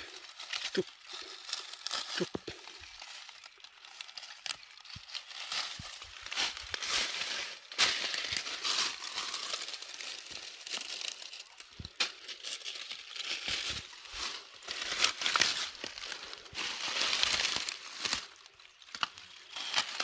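Rustling and crinkling of dry leaves and forest undergrowth in uneven bursts, as someone moves and works through the brush, with a few sharp snaps, the clearest about twelve seconds in.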